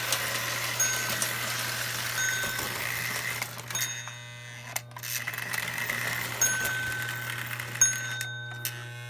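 Lionel steam locomotive running on tubular toy-train track, its E-unit given the pawl-arm fix to cut the buzz. There is a steady low hum, rolling wheel-on-rail noise and repeated short, high metallic ringing pings. The sound fades for a moment about four seconds in and again near the end.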